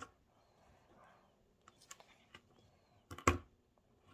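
Small digging tool picking and scraping at a gold dig-kit block: light scattered clicks and scratches, with one louder knock about three seconds in.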